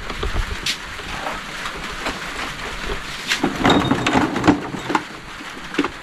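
Rain falling steadily on a corrugated metal roof, a constant hiss. A run of knocks and clatter from objects being handled comes a little past halfway.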